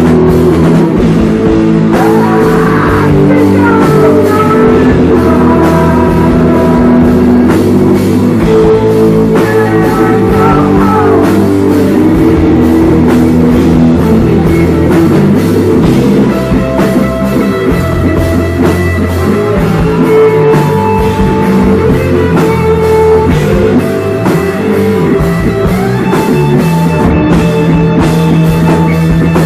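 Rock band playing live and loud: electric guitar over a drum kit.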